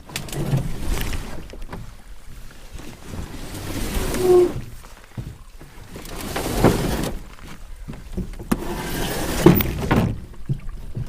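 Canoe paddle strokes pulling through water, a swishing stroke every two to three seconds, with a short squeak about four seconds in.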